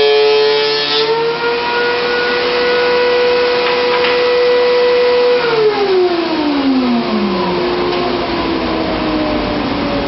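Thickness planer running with a steady whine after a maple board has passed through; the pitch rises slightly about a second in as the cut ends, then falls steadily from about halfway as the machine is switched off and spins down.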